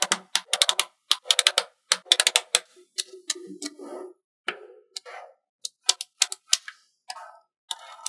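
Small magnet balls clicking sharply as they snap together, in fast irregular clusters that thin out after the first few seconds, with a softer rattle of balls about three to four seconds in.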